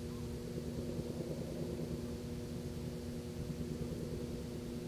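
Steady low engine hum with a few held tones and no break or change.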